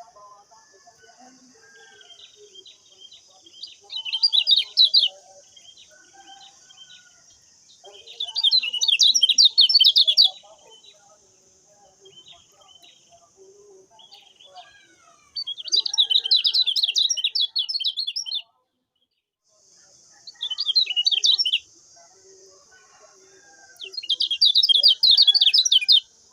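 Lemon-bellied white-eye (kecial kuning) singing in loud bursts of rapid, high twittering, five phrases a few seconds apart, with softer scattered chirps between them. A steady high hiss runs underneath and cuts out for about a second past the middle.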